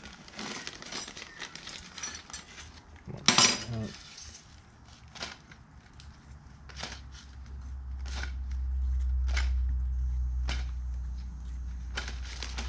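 Small steel coil springs from a Powerglide high clutch drum's piston return spring pack clinking and clicking as they are handled and picked out by hand, with one sharper clatter about three seconds in. A low steady rumble comes in during the second half.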